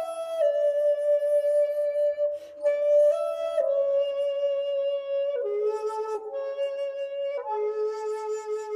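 A 2.1-shaku madake bamboo shakuhachi playing a slow solo melody: long held notes that step down and back up in pitch, with breath audible in the tone in places.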